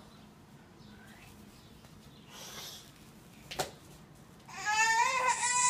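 An 11-month-old baby breaks into a loud, drawn-out crying wail a little past halfway through. Before it there is a soft rustle and a single sharp click.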